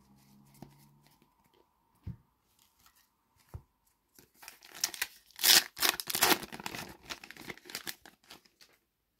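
A Panini FIFA 365 2025 trading-card packet torn open by hand, a few seconds of crackling and tearing of the wrapper starting about four seconds in. Two soft knocks come before it.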